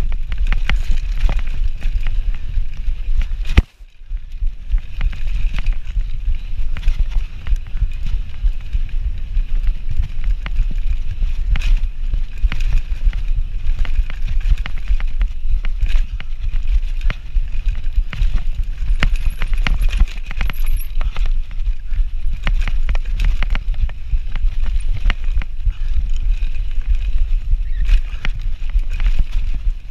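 Mountain bike riding fast down a dirt trail: wind buffets the microphone with a constant low rumble over tyre noise, and the bike gives frequent clattering knocks and rattles over bumps. One sharp knock comes about three and a half seconds in, followed by a brief lull.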